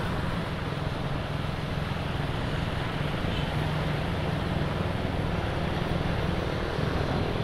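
Wind rushing over a phone microphone on a moving motorcycle, with the steady hum of small motorcycle engines running at riding speed.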